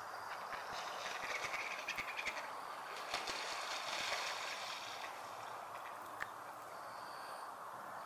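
Outdoor ambience with a steady soft hiss. For the first half or so, a rapid rattling animal chatter, most likely a bird's, comes in runs. A single sharp click follows a little after six seconds.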